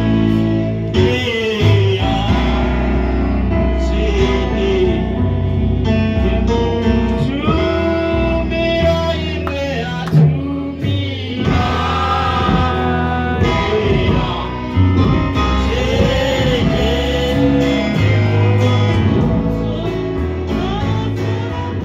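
Gospel music: voices singing a melody over keyboard chords and a steady bass line.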